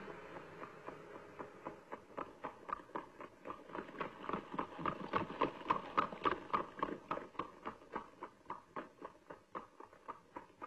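Hooves clip-clopping at a quick, even pace, about five clops a second. They grow louder to a peak about six seconds in, then fade away.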